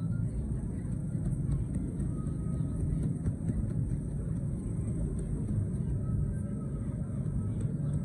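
Steady low rumble of outdoor background noise, like street traffic, coming in from outside.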